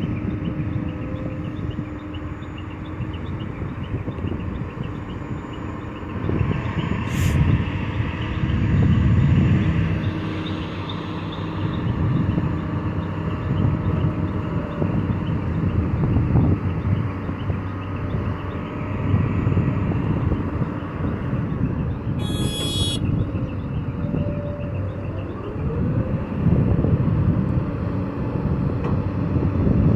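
Diesel engine of heavy earthmoving machinery running and working, its revs rising and falling every few seconds as it takes load. A sharp click comes about seven seconds in, and a brief high-pitched tone about twenty-two seconds in.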